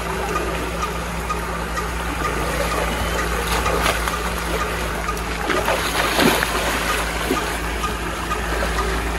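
Water gushing from a tubewell pipe into a shallow pool, with a steady low pump hum underneath and splashing as a calf and a man wade through the water, the sharpest splashes about four and six seconds in.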